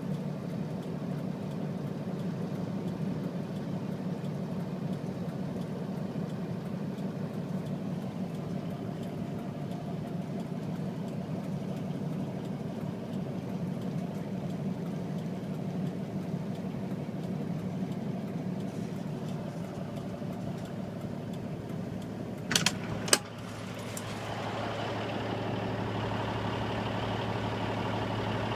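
An idling engine with a steady low hum. Near the end come two sharp knocks, after which the hum settles into a steadier, lower tone.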